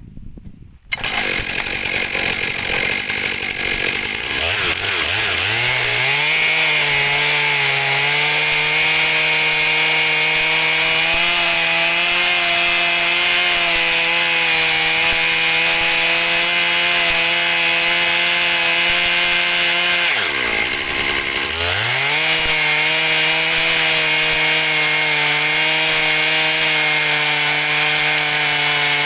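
Chainsaw running a chainsaw mill through an oak log. It starts suddenly about a second in, climbs to full revs over the next few seconds and holds steady under load. About two-thirds of the way through, the revs dip briefly and climb straight back.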